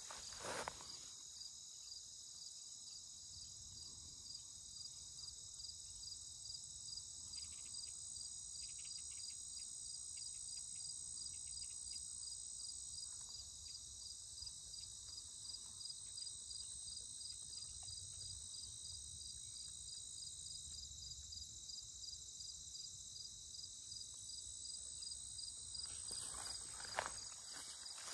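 A chorus of meadow crickets chirring steadily in a high, evenly pulsing trill, with a single sharp knock near the end.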